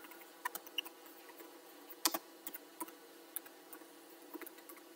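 Typing on a computer keyboard: scattered, uneven key clicks in short runs as a short chat message is typed out and sent. The loudest click comes about two seconds in.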